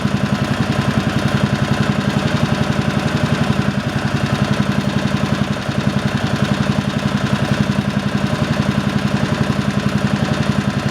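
Single-cylinder engine of a 1970 Rupp Roadster mini bike, freshly reconditioned with new points, condenser and coil, running steadily at idle with an even, rapid putter.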